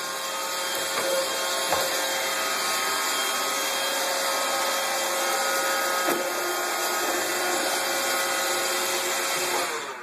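Roomba robot vacuum running with a steady whirring hum and a couple of light knocks. It winds down and stops just before the end as it is switched off.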